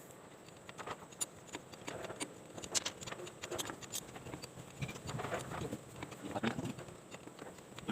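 Irregular light clicks and taps of hand tools and metal parts being handled while the fuel injectors are refitted on an excavator engine.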